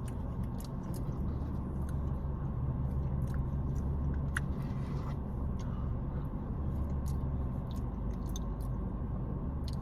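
A person chewing a mouthful of mashed potatoes and gravy, with small wet mouth clicks scattered throughout, over a steady low hum.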